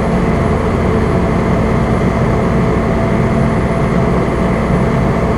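Fire engine's diesel engine running steadily at a low, even speed, heard from inside the cab with a constant low hum.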